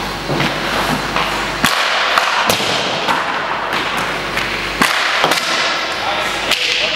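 Ice hockey practice sounds: several sharp knocks and slaps at uneven intervals, from pucks, sticks and goalie pads striking, over the hiss of skate blades scraping the ice.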